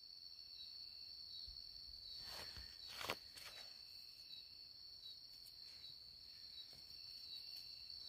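Crickets trilling steadily, one high continuous tone with small regular pulses. A few faint rustles come between about two and three and a half seconds in, with one sharper click near three seconds.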